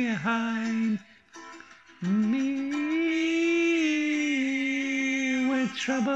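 A man singing a slow melody: a few short notes, then a pause of about a second, then one long note that rises, holds and steps down, lasting over three seconds, before shorter notes start again near the end.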